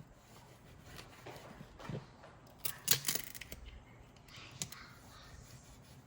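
Scattered short clicks and brief scraping and crinkling noises, loudest in a cluster about three seconds in: handling noise from adhesive backsplash tiles being worked onto a wall.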